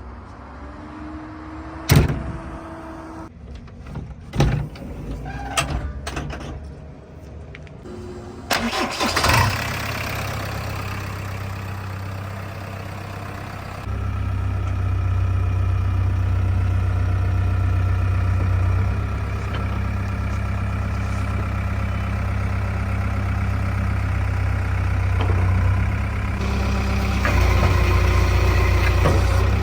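A few sharp knocks and clunks, then a diesel engine starts about nine seconds in and runs steadily, getting louder about fourteen seconds in.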